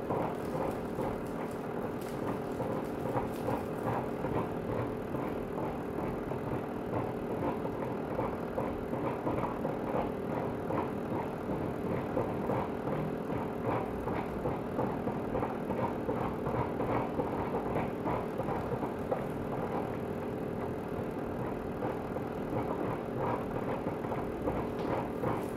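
Tepal upright garment steamer running as its head is passed over a hanging garment: a steady hum with a fast, irregular crackling over it.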